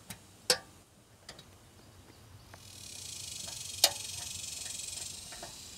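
Sharp metal clicks and taps from hand tools working inside a new metal meter base; the two loudest come about half a second in and about four seconds in. A steady high hiss rises about three seconds in and fades near the end.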